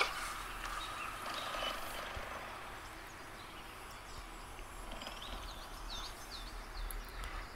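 Cheetah chirping sound effect from Google's 3D AR cheetah model, played through the phone: a quick run of about five short high chirps between five and seven seconds in, over a faint hiss.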